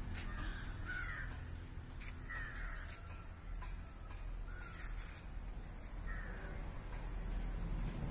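A bird calling about five times, short calls that glide in pitch, spaced a second or two apart, over a low steady rumble.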